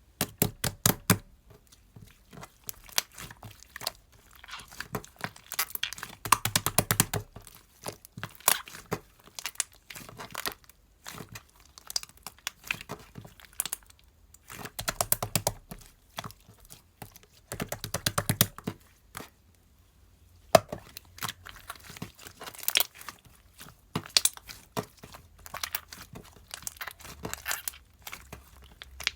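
Bursts of rapid sharp clicks and taps, with some crinkling, coming in clusters a few seconds apart with quieter gaps between.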